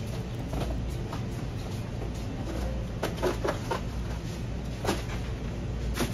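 Cardboard product boxes being handled and set against plastic stocking crates: a few light knocks and rustles, a cluster of them about three seconds in and another near the end, over a steady low hum.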